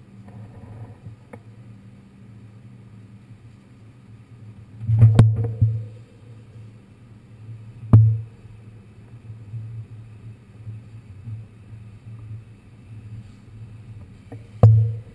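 New York City subway car running: a steady low rumble with three loud knocks, about five and eight seconds in and near the end.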